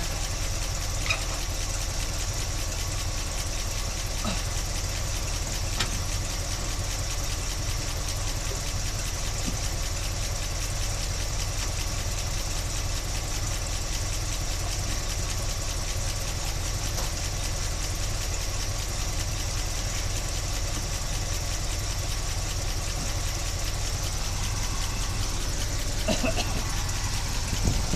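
1976 Chevy Blazer's engine idling steadily, with a few faint ticks in the first few seconds.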